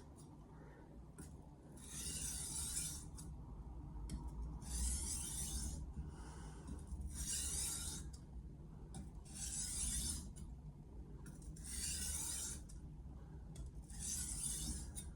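An 8-inch Mercer Granton-edge knife drawn edge-leading across a hard Stratton Pro 2000 sharpening stone in slow single strokes, making a hiss of steel on stone about every two seconds, six times. These are light deburring passes.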